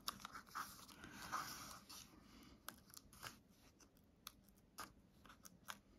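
Faint handling of paper and cardstock: soft rustles and scattered light clicks as a die-cut piece is pressed onto a card and a strip of foam adhesive dots is handled.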